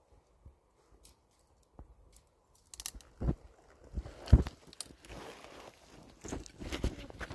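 Quiet at first, then from about three seconds in a run of sharp knocks mixed with crunching, rustling handling noises.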